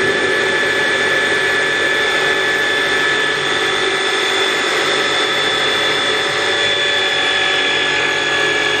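Electric hand blender's motor driving a mini chopper bowl attachment, running steadily at full speed with a high whine as it blends brownie batter.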